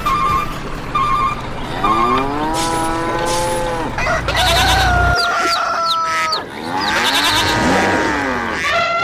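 Cow mooing sound effects: several long, drawn-out calls that rise and fall in pitch, after a few short beeps near the start.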